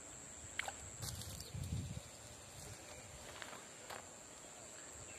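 Faint rustling and handling in bankside weeds, with a few light ticks and a soft low thump about one and a half seconds in, over a steady high-pitched whine.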